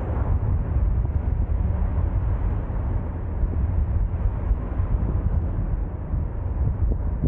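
Steady low rumble of traffic and street noise, with no sudden events standing out.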